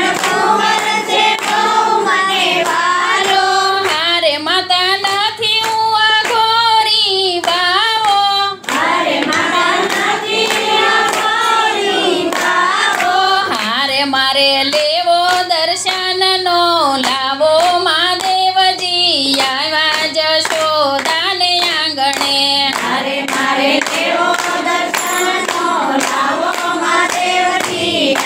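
A group singing a Gujarati devotional kirtan together, with hand-clapping keeping the beat.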